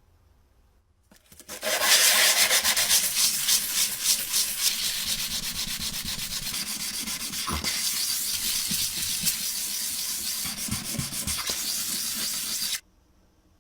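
Quick, continuous abrasive rubbing strokes, like sanding or scrubbing rust off a part of an antique mini sewing machine. It starts about a second and a half in and stops abruptly near the end.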